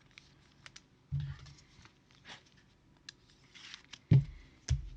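Trading cards being handled on a table: light clicks and rustles of card stock and plastic, with a soft knock about a second in and two sharp knocks about four seconds in.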